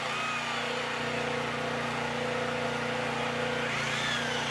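A small engine runs steadily with an even hum. A short whine rises and falls twice, once at the start and once near the end.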